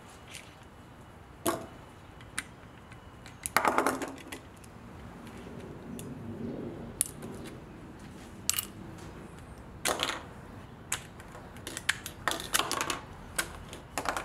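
Small clicks, taps and clatter of screws, a screwdriver and plastic switch housings being worked and handled on a wooden bench, with a short ringing metallic rattle about four seconds in, like a small metal part dropping.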